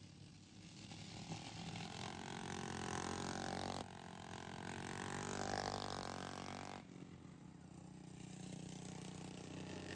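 Racing lawnmower engine under hard acceleration, its note climbing in pitch, dropping off sharply twice and then climbing again.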